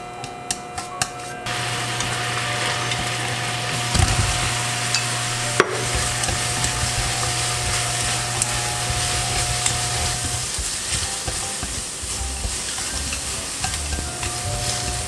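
Sauce with julienned carrot and leek boiling and sizzling hard in a stainless steel pan as it thickens, stirred with wooden chopsticks. There are clicks of the chopsticks against the pan in the first second or so, and a couple of knocks about four and six seconds in as fried pork pieces are tossed in the sauce.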